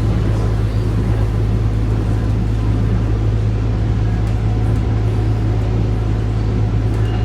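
Steady drone of a SMART diesel multiple-unit railcar running along the line, heard from inside the car: a constant low engine hum under even rolling noise.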